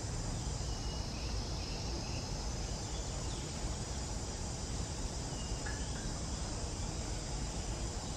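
Steady high insect hum outdoors, with a low rumble underneath and a few faint short chirps.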